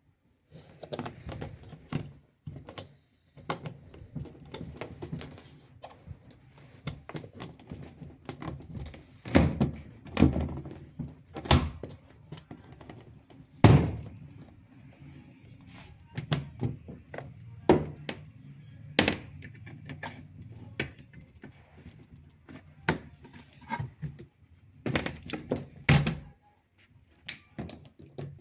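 Irregular knocks, thunks and light clatter of things being handled and set down, the loudest a sharp knock about fourteen seconds in.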